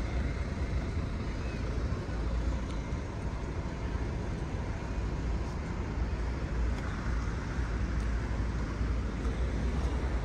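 Steady city street background noise: a continuous traffic-like rumble with no single distinct event.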